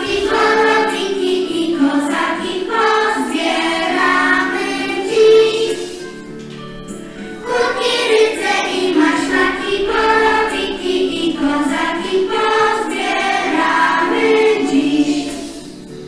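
A group of preschool children singing a song together, with a short pause in the singing about six seconds in.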